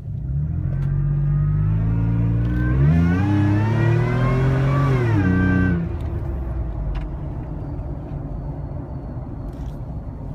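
Supercharged Toyota FJ Cruiser's 4.0-litre V6 accelerating hard, the supercharger's whine climbing in pitch with the revs. A little under six seconds in the throttle is lifted and the engine and whine fall away suddenly, leaving steady lower road and engine noise.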